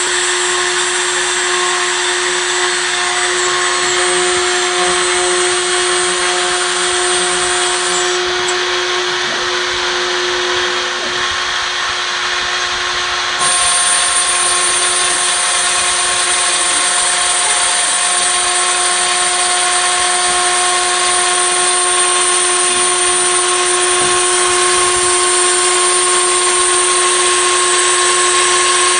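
CNC router spindle with a 2 mm end mill cutting 3 mm acrylic (methacrylate) sheet: a steady high-pitched whine over a dense cutting hiss. The sound dips slightly about eight seconds in and steps back up louder about halfway through.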